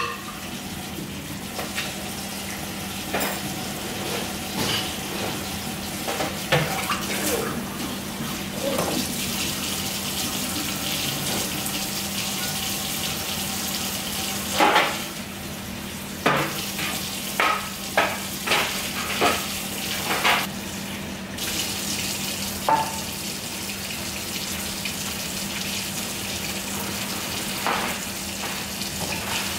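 Kitchen tap running into a sink while dishes are washed: a steady rush of water with the clatter and knock of dishes and utensils, and a cluster of sharper knocks about halfway through. A steady low hum sits underneath.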